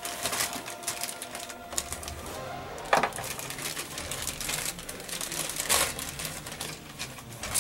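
Plastic parts bag crinkling and rustling as it is torn open and handled, with two louder crackles about three seconds in and near six seconds.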